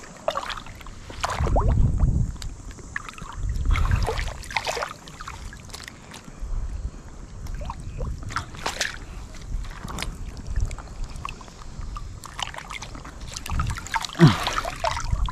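Gusts of wind buffeting the microphone in surges every couple of seconds, over splashing and sloshing water with scattered small clicks.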